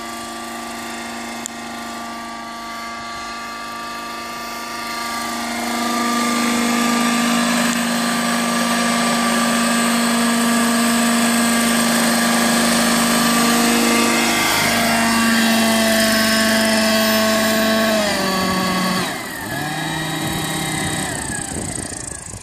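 Radio-controlled model helicopter in flight, a steady engine-and-rotor hum. It grows louder about a quarter of the way in, then its pitch drops sharply as it comes down to land, and it winds down near the end.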